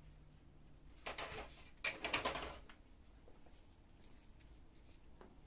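Plastic housing parts of an HP LaserJet 1320 laser printer being handled and moved, a scraping rustle from about one second in until nearly three seconds in.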